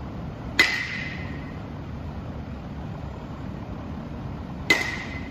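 A bat hitting a pitched ball twice, about four seconds apart: each hit is a sharp ping that rings briefly and fades. A steady low rumble runs underneath.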